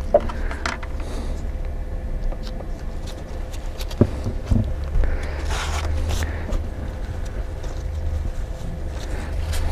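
A steady low hum, with small clicks and rustles of gloved hands handling a Loctite bottle and small sight parts, two soft knocks about four seconds in, and a brief rustle a little later.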